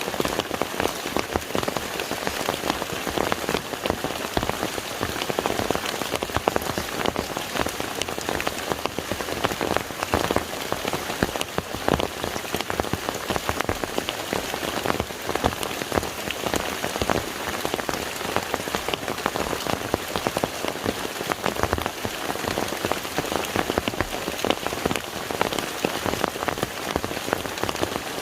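Steady rain falling on water, a dense patter of many small drops splashing.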